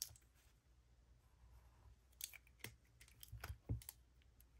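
Light clicks and taps of Zebra Sensations colored pencils being picked up and handled. After a quiet first half, about eight sharp clicks come close together, the loudest a little before the end.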